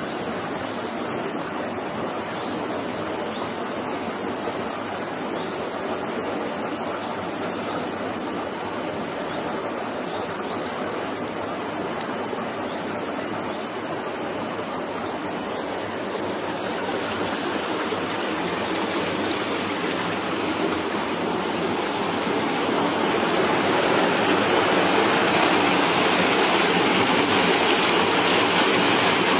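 Steady rush of flowing water in a stream, growing louder over the second half where it becomes churning white water.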